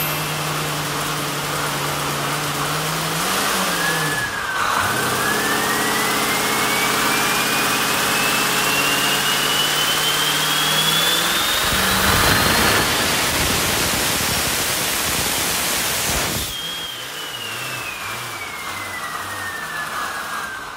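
Turbocharged, methanol-burning 380 small-block Chevy V8 with mechanical injection on an engine dyno: it runs at a steady speed while the turbo's whine climbs, pulls hard and loud for about five seconds, then drops off the throttle abruptly, the turbo whine falling as the engine settles to a lumpy idle. The tuner judges it to be running with far too much fuel.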